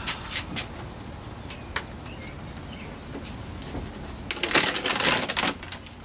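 Plastic and metal parts inside a 2016 Toyota Camry door clicking and rattling as the door handle mechanism is worked by hand: a few separate clicks at first, then about a second of rapid rattling clicks near the end.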